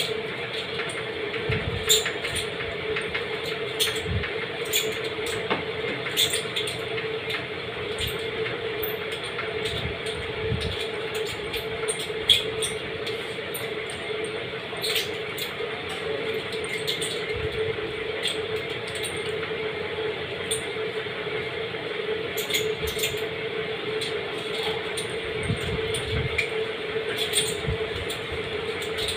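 Eating sounds: irregular wet clicks and smacks of chewing and handling food, over a steady low hum.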